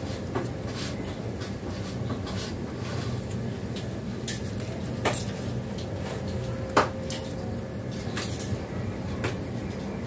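Indian ringneck parakeet's beak biting and cracking kernels off a cob of green corn: irregular sharp clicks and cracks, about ten in all, the loudest near the seventh second, over a steady low hum.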